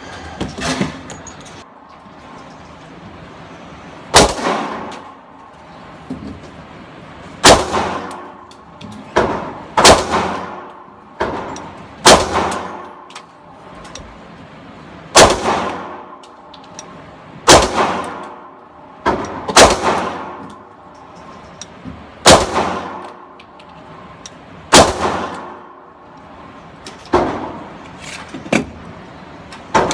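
Rock Island .22 TCM pistol firing 9mm through its swapped-in 9mm barrel: about ten shots at a slow, steady pace, one every two to three seconds, each followed by a ringing reverberation.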